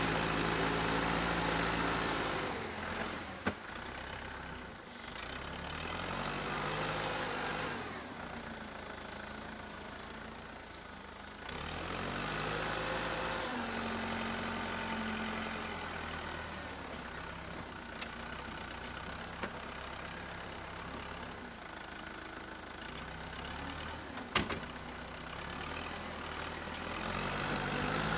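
Case 580CK backhoe's 188D four-cylinder diesel engine running, its speed and loudness rising and falling several times, with a few sharp knocks, the loudest about three quarters of the way through.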